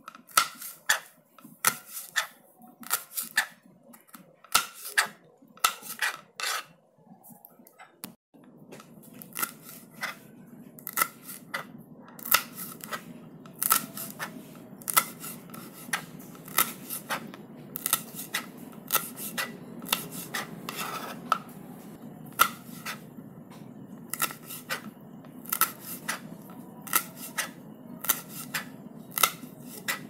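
A knife chopping chillies on a cutting board: a run of sharp, crisp cuts, about two a second and irregular, some in quick pairs. About eight seconds in, a steady low hum comes in under the cuts.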